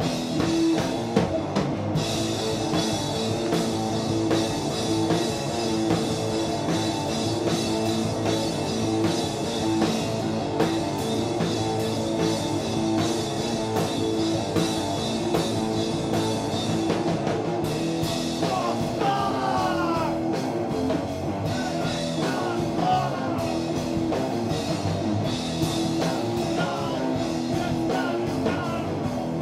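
Live heavy rock from a two-piece band: electric guitar over a drum kit with cymbals, played loud and without a break, with a few sliding high notes about two-thirds of the way through.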